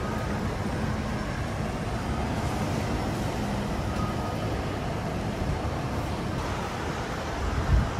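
Airport departure-hall ambience: a steady, even rumble and hiss of the large indoor space, with a brief low thump near the end.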